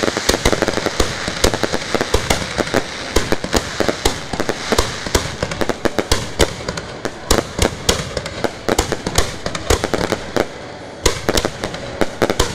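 Ground-launched fireworks firing at close range: a dense, irregular run of sharp bangs and crackles, several a second, over a steady hiss.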